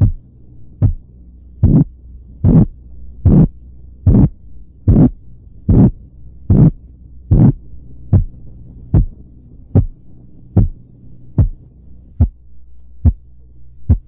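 Korotkoff sounds over the brachial artery as a blood-pressure cuff deflates: a single thump a little faster than once a second over a steady low hum. The thumps grow louder over the first several seconds, then weaken again.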